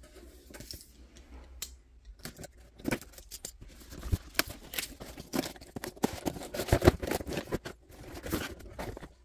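Product box being opened by hand: irregular clicks, scrapes, tearing and rustling of the packaging, sparse at first and busier from about two seconds in.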